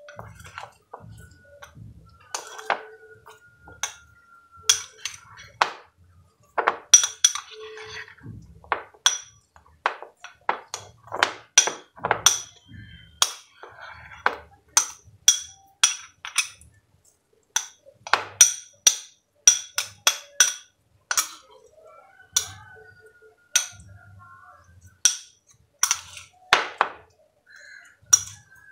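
Metal spoon clinking and scraping against a small glass bowl while stirring a thick banana and turmeric paste: irregular, sharp clinks, often a couple a second, each with a brief ringing note.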